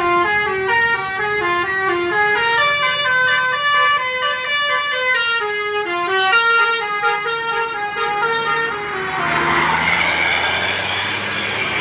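Basuri telolet bus horn playing a fast multi-note melody in stepped tones for about nine seconds. It then gives way to a louder rushing noise with a gliding tone.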